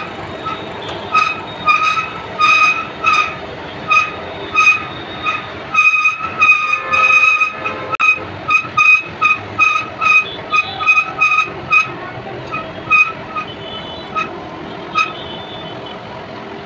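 Monkey hoist (electric construction material lift) running while its trolley goes down on the steel cable. A short high-pitched chirp repeats about twice a second and comes more sparsely over the last few seconds.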